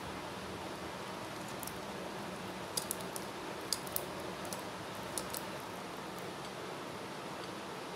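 Wire whisk beating softened butter in a glass bowl, its wires clicking lightly against the glass about ten times in a cluster around three to five seconds in, over a steady hiss.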